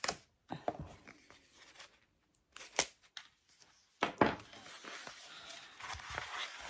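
Paper wrapping on a rolled diamond-painting canvas being slit with a craft knife and torn open, with a few sharp clicks. About four seconds in it turns to a steady paper rustle as the wrapped canvas is unrolled.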